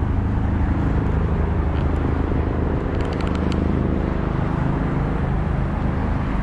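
Steady low hum of a running engine, with a short run of quick ticks about three seconds in.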